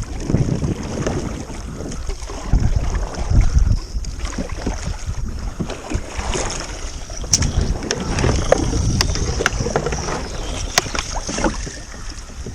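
Wind rumbling on the microphone in uneven gusts, with scattered sharp clicks and knocks from about seven to eleven seconds in.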